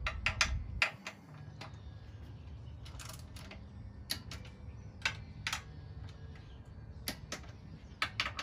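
Click-type torque wrench ratcheting and clicking as the plate-mount bolts are tightened; the click signals the set torque of 17 foot-pounds. Sharp metallic clicks come singly and in quick pairs and small clusters, about a dozen in all.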